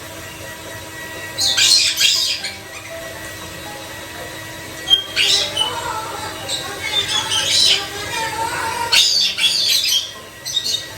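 White-bellied caique squawking in four harsh, high-pitched bursts, about two seconds, five seconds, seven to nine seconds and nine to ten seconds in.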